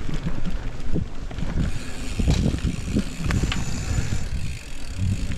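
Mountain bike rolling fast over a dirt singletrack: tyre noise on dirt and leaf litter, and the bike rattling over bumps, with a few sharp clicks about two and three seconds in. Wind rumbles on the microphone.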